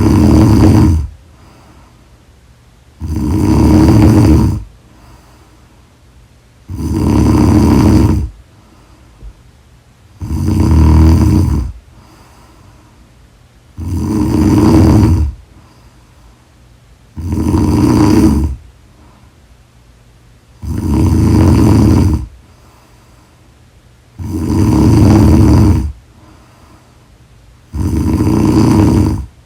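A person snoring loudly in sleep, one long snore about every three and a half seconds, with quiet breathing between.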